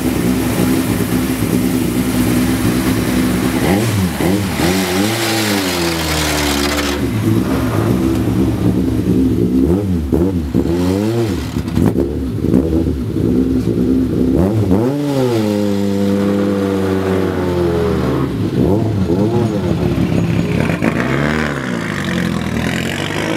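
Peugeot 306 Maxi kit car's 2.0-litre XU10J4RS inline-four rally engine idling, then revved again and again in quick blips. Each blip climbs sharply and drops back to idle, with one longer rev about two-thirds of the way in.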